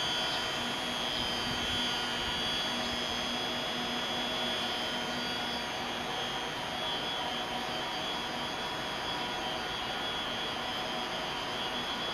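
E257-series electric train standing at the platform, its onboard equipment running with a steady hum and a high whine.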